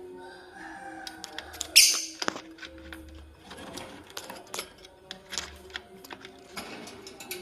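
Lovebird pecking at corn, a run of sharp irregular clicks from its beak on the kernels, with one short harsh call about two seconds in. Soft background music with held notes lies underneath.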